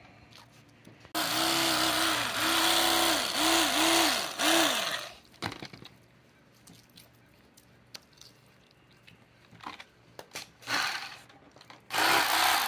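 Black+Decker electric knife running as it cuts through buffalo fish fillets, its motor pitch dipping and recovering over and over under the load. It runs for about four seconds, stops, gives a short burst, and starts again near the end.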